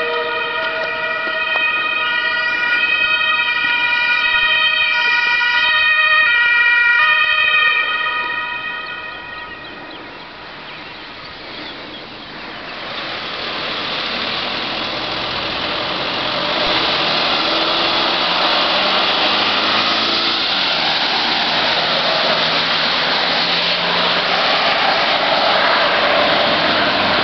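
German ambulance's two-tone siren (Martinshorn) switching back and forth between its two notes, loudest about six seconds in and fading away by about ten seconds. From about thirteen seconds a loud steady rushing noise takes over.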